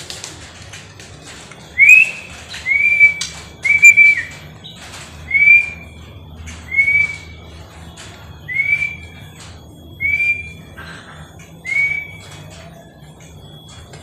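Albino white-rumped shama (murai batu) whistling the same clear, loud note about eight times, each a quick upward slur into a held tone, roughly once every second and a bit. Short faint taps fall between the notes.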